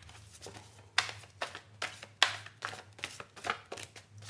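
A Babylonian Tarot deck being shuffled by hand: a quick run of short card slaps and riffles, about two a second.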